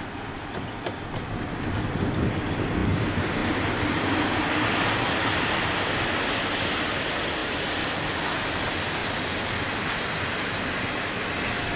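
Passenger train coaches rolling past on the station tracks: a steady rumble and rattle of wheels on rail that builds a little over the first couple of seconds and then holds.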